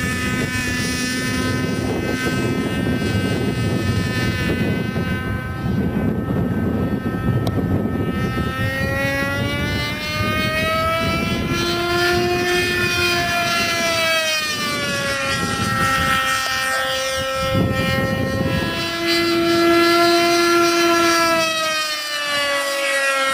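Model airplane's MDS-61 nitro glow engine screaming at high revs in flight, a high, strongly pitched note that climbs and falls several times as the plane passes and manoeuvres, with a rushing noise underneath.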